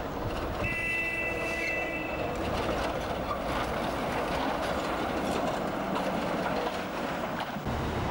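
Street tram's wheels squealing on a curve, a high steady screech lasting about two seconds, followed by the rumble of the tram running past close by.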